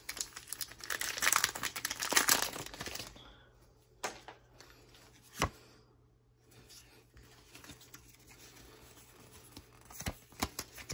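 Foil wrapper of a Pokémon card booster pack crinkling and tearing as the pack is opened for about the first three seconds. After that come soft shuffling of the cards and a few sharp taps.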